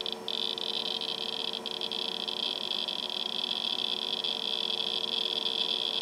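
Geiger counter switched on and sounding a dense, fast crackle of clicks that blends into a high buzz, starting abruptly: a high count rate from X-rays given off by sticky tape being peeled in vacuum.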